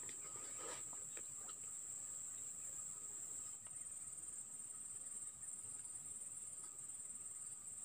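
Insects chirping in a steady, continuous high-pitched chorus, with a fainter lower steady tone beneath it.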